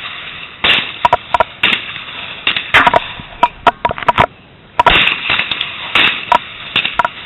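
A rapid, irregular run of loud sharp cracks and knocks, often several a second, with short lulls around the middle.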